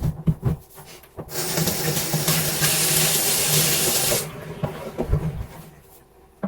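Water running from a kitchen tap into the sink for about three seconds, after a few knocks of kitchenware; a little clatter follows as it stops.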